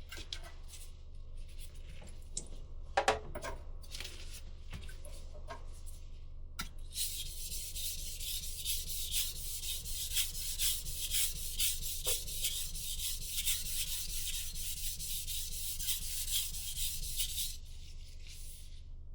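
Knife blade being stroked back and forth on a sharpening stone in quick, even rubbing strokes. A few scattered clicks and knocks come first, and the sharpening starts about seven seconds in and stops shortly before the end. A steady low hum runs underneath.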